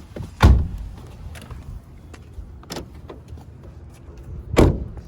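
Two heavy thumps about four seconds apart, car doors being shut, with a few lighter clicks and knocks between them over a low rumble from the car.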